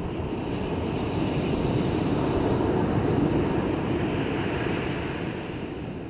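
Sea surf: a steady rush of breaking waves that swells to a peak about halfway through and then eases off.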